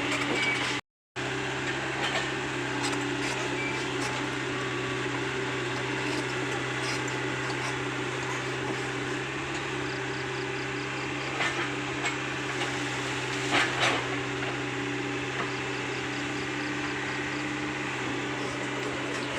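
Komatsu PC75UU compact excavator's diesel engine running at a steady drone, with a few short knocks and clanks about two-thirds of the way through.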